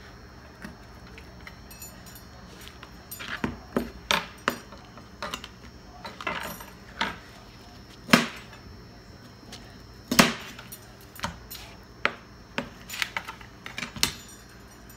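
Chef's knife knocking and tapping on a plastic cutting board while cutting into a raw turkey wing, in irregular sharp knocks spaced a fraction of a second to a couple of seconds apart, two of them much louder about eight and ten seconds in.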